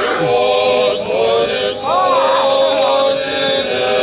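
Orthodox liturgical chant sung by men's voices in long held notes, several voices at once, during the Great Blessing of the Waters. About two seconds in, one voice slides up and back down over the held notes.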